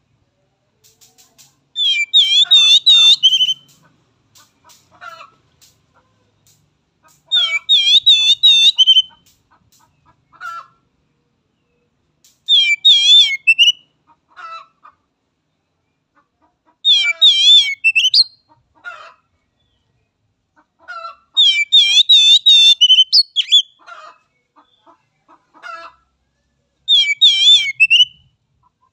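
Oriental magpie-robin (kacer) singing, repeating a loud, rapid, wavering high-pitched phrase six times, about every four to five seconds, with softer single notes in between.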